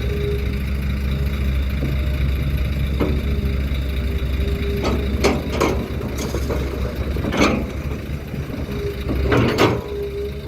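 Heavy machinery engine running steadily at a low rumble, with a series of sharp knocks and clanks, about eight of them, from about three seconds in.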